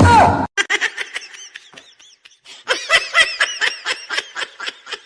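A person laughing in quick, high-pitched bursts of several 'ha's a second, growing stronger near the middle. It follows a brief loud sound with a falling pitch right at the start.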